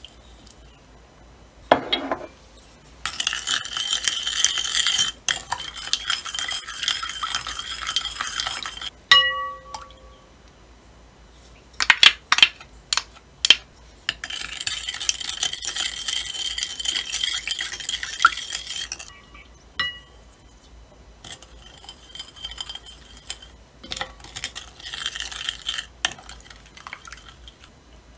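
Wooden spoon stirring and scraping in a glass mixing bowl, beating egg and liquid ingredients in spells of a few seconds. Twice the spoon clinks against the glass and the bowl rings briefly, and a few sharp taps come in a cluster about halfway through.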